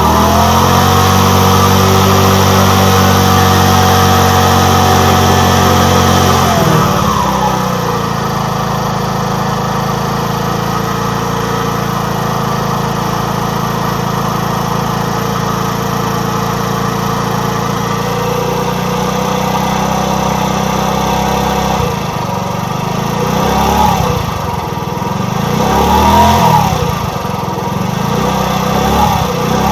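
Motor scooter engine running fast and steady, then dropping to a lower idle about seven seconds in. Near the end come several short throttle blips, each rising and falling in pitch.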